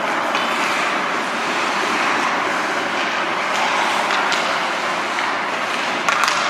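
Ice rink ambience during a hockey game: a steady wash of noise from the ice and the stands, with a few faint clicks.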